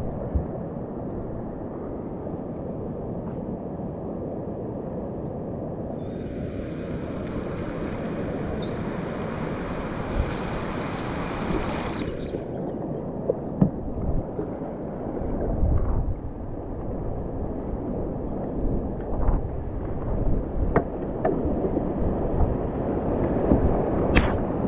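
River water rushing under and around a kayak, with wind buffeting the camera microphone; a high hiss joins in for about six seconds in the middle. Near the end splashes and knocks come thick and fast as the kayak drops into the rapid's whitewater.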